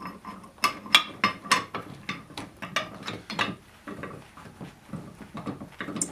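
Steel hitch parts, bolts and nuts being handled and set against one another: a run of irregular metal knocks and clinks.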